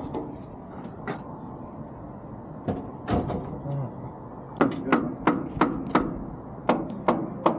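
Sharp knocks and clacks: a few scattered ones, then a quick irregular run of them, two to three a second, over the last three seconds, over a low steady background.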